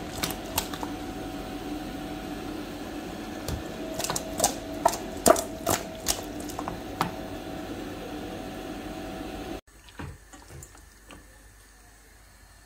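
Marinated chicken pieces handled in a stainless steel bowl: wet squelching with sharp clicks and knocks against the metal, over a steady hum. The hum cuts off suddenly near the end, leaving faint handling sounds.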